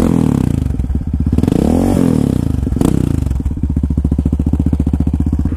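Yamaha Raptor 700's single-cylinder four-stroke engine through a Big Gun dual aftermarket exhaust, idling loudly, blipped once about a second and a half in, its pitch rising and falling back to idle.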